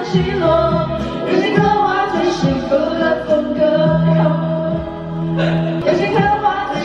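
Karaoke singing: two women singing into handheld microphones over the song's backing track.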